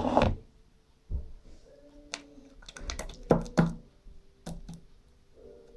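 Scattered sharp clicks and taps of homemade slime being handled in a bowl, with a cluster of them in the second half.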